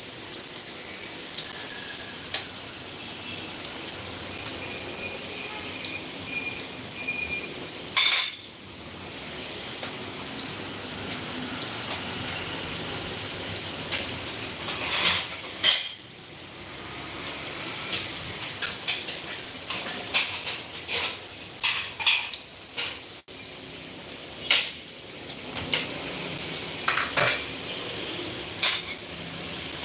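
Metal utensils clinking and clattering against cookware many times, over a steady high sizzle of frying.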